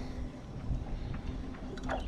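Low, steady rumble of wind buffeting the microphone, with a faint muttered voice near the end.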